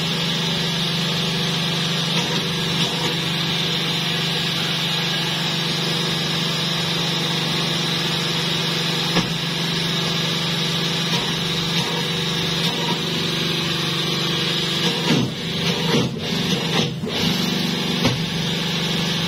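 Sheet-metal press brake running with a steady mechanical hum while plate is bent. There are a few light knocks, and uneven handling noise near the end.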